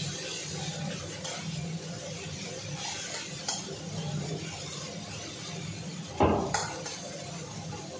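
Metal spatula stirring and scraping masala and potato as they fry in an aluminium kadai, with a light sizzle. One louder knock about six seconds in.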